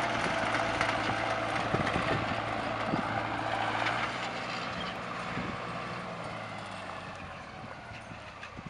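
Tractor diesel engine running steadily under load as it pulls a spring-tine cultivator through dry soil, with scattered clicks and rattles. It gets quieter from about four seconds in.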